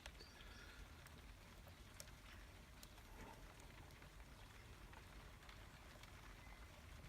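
Near silence with a few faint, scattered light clicks: a hook pick and tension wrench working the pin stacks of a Ruko euro cylinder lock.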